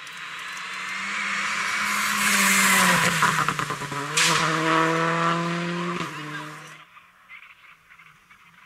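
Rally car engine running hard and growing louder as it approaches, its pitch falling as the driver comes off the throttle for a bend. About four seconds in it comes back loud and climbs in pitch under full acceleration. Near the end it drops to a faint, distant rally car engine.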